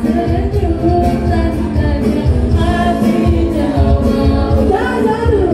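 A group of girls singing together over live band music with a pulsing bass beat and guitar, amplified through a PA sound system.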